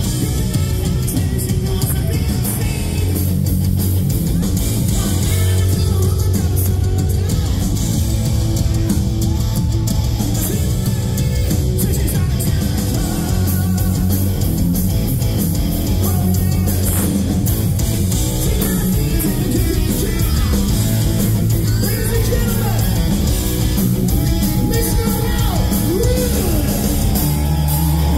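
Live hard rock band playing loud: distorted electric guitars, a drum kit and a male lead singer, heard from the audience.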